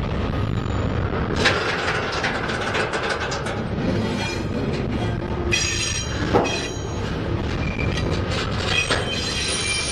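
Double-stack container train's well cars rolling past close by: a steady rumble of steel wheels on rail with scattered knocks and clanks. High-pitched wheel squeal sets in about halfway through and again near the end.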